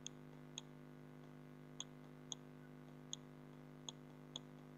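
Faint computer mouse clicks, about seven of them at irregular intervals, over a low steady electrical hum.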